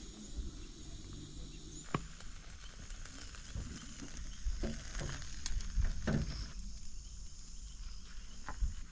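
Steady high-pitched chirring of evening insects, with scattered soft knocks and clicks.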